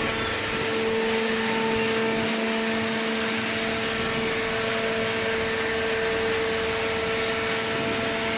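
A motor running steadily, a constant hum-and-whine with a hiss of air or machinery over it, with no change in speed.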